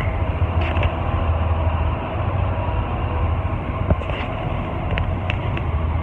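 Car ferry's engines running with a steady low rumble, heard from the vehicle deck. A short knock sounds a little before the four-second mark.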